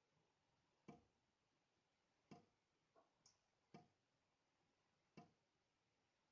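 Faint drops falling one by one from a dripping tap into a sink, each a short plink with a ringing note. Four drips, evenly spaced about a second and a half apart, with two smaller drips just after three seconds in.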